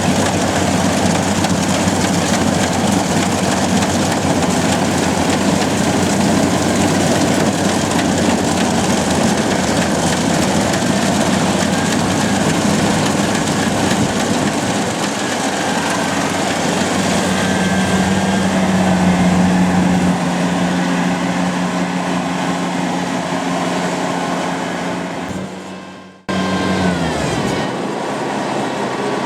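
Kubota combine harvester running steadily while harvesting rice: a loud continuous engine and machinery hum. Near the end the sound dies away, breaks off briefly, then comes back abruptly.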